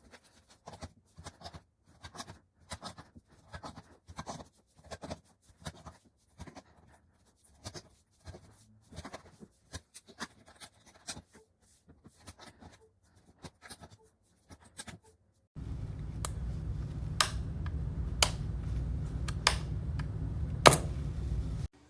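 Irregular small clicks and taps, a few a second. About fifteen seconds in, a low steady hum starts with a few sharp clicks over it, then cuts off suddenly near the end.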